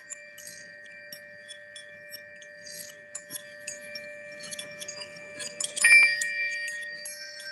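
Metallic chimes ringing in long held tones, with scattered light clinks and one louder strike about six seconds in that rings on.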